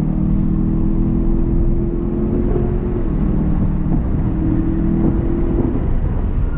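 BMW E92 M3's V8 running hard at track speed, heard from inside the cabin over a steady rush of wind and road noise. Its note climbs slowly and drops twice, about three and six seconds in.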